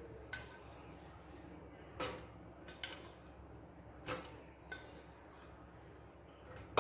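A spoon clinking and knocking against a blender jar as soaked dried red chillies are spooned into it: several separate light knocks, the loudest about two and four seconds in.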